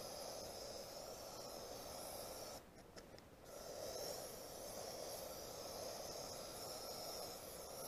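Aerosol spray can of polycrylic hissing as it is sprayed in a steady stream, with a short break a little under three seconds in when the nozzle is released.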